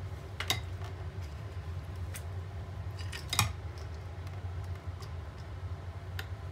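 A few light clicks and taps as a silicone spatula scrapes cream cheese frosting off hand-mixer beaters in a glass bowl, the sharpest knock about halfway through, over a steady low hum.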